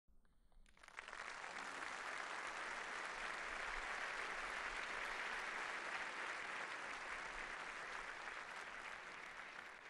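A large seated audience applauding in a concert hall, the clapping swelling in about a second in, holding steady and beginning to die away near the end.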